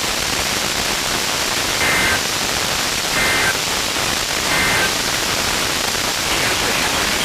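NOAA Weather Radio reception hiss, with three short bursts of SAME digital data tones, each under half a second and about 1.3 s apart, warbling between two high pitches.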